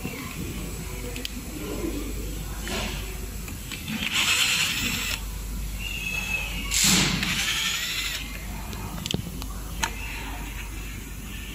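Cordless drill-driver running in two short bursts of about a second each, backing screws out of an electric scooter's deck. A few sharp clicks follow near the end.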